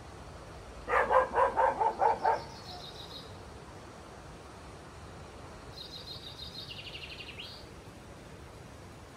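A dog barking in a quick run of about seven barks, about a second in. Later a small bird sings a short high trill that steps down in pitch.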